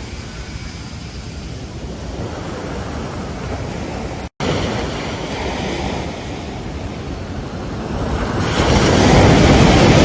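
Ocean surf: waves washing onto a beach, with a louder wave breaking near the end. The sound drops out for an instant a little after four seconds in.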